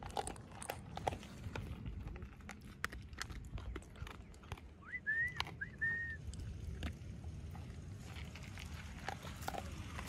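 A dog crunching dry kibble from a plastic bowl, a scatter of sharp crunching clicks. About halfway through come three short high whistled notes, the first two bending in pitch and the last held briefly.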